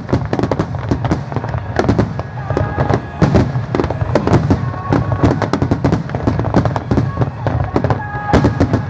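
Aerial fireworks shells bursting in rapid succession, a dense, continuous run of bangs and crackles with no gaps.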